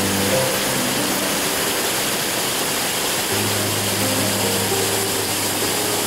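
Steady rush of a fast mountain stream pouring over rocks, with soft background music of long held notes playing over it.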